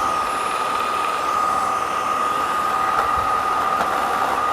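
Eureka Elivate cordless stick vacuum's brushless motor running steadily, a constant high whine over the rush of air.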